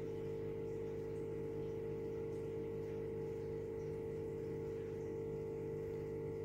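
A steady, unchanging hum with one strong tone. The mixture being poured into the pot makes no sound that stands out from it.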